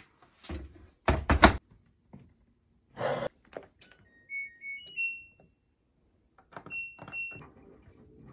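A couple of heavy thumps, then a washing machine's control panel beeping as a wash cycle is set: a short run of electronic beeps stepping up in pitch, and two more beeps a couple of seconds later.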